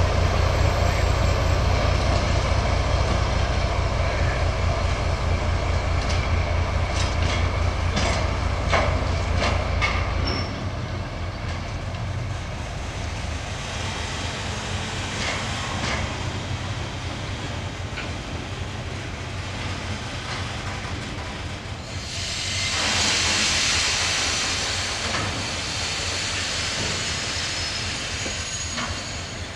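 TGM6D diesel-hydraulic shunting locomotive passing with a flat wagon: the engine's low throb, which drops away sharply about ten seconds in as it pulls off, and wheels knocking over rail joints and points around the middle. Near the end a hiss of air rises and fades over a few seconds.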